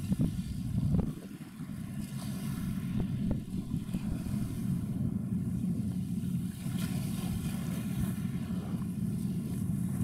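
Harbour tug's diesel engines running as it pushes against a container ship's hull: a steady low rumble, with wind buffeting the microphone.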